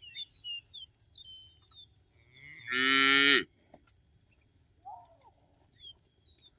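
A cow moos once, short and loud, about three seconds in. Small songbirds chirp and whistle before it.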